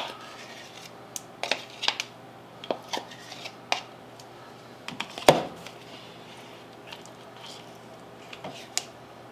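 Scattered light clicks and knocks of a utensil against a measuring cup and a stainless steel mixing bowl as sour cream is scooped in, with one louder knock about five seconds in.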